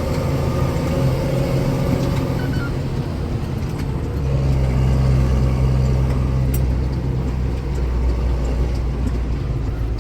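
Tractor engine running under load while hauling a trailer of harvested maize, heard from the cab. About four seconds in, its low note grows louder as the engine works harder.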